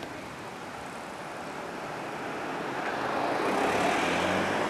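An SUV driving past close by: tyre and engine noise swell over a couple of seconds and are loudest about four seconds in, with a low engine hum under the rush of the tyres.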